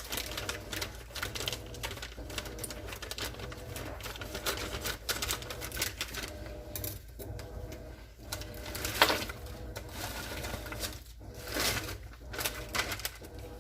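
Kitchen utensils clicking and clattering irregularly against cookware, over a faint steady hum.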